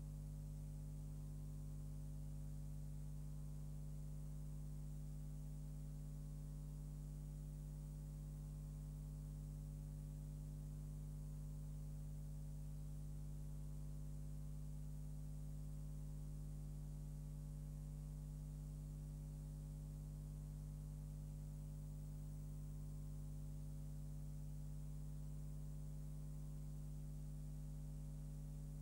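Steady low electrical mains hum with a faint hiss, unchanging throughout; no other sound.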